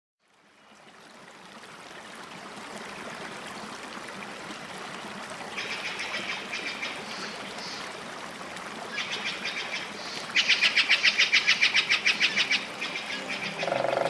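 Small birds singing in rapid trilled phrases over a steady rush of running water, which fades in at the start. The loudest trill comes about ten seconds in. Soft music comes in near the end.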